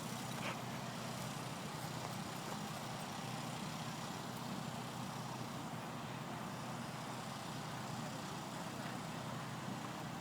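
Steady outdoor background noise, an even hiss with no clear events, with one faint short sound about half a second in.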